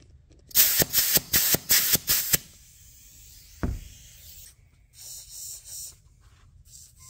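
Ratchet strap being released from around a lawnmower tire: a quick run of about six loud rasping strokes as the strap is worked loose, then a single thump. A few short high hisses follow near the end.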